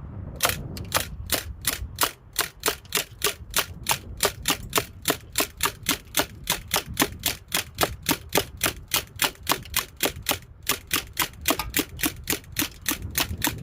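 Umarex Legends MP40 CO2 BB gun firing 4.5 mm steel BBs, a long string of sharp shots at about three to four a second with a brief pause about ten seconds in, until the magazine runs empty near the end.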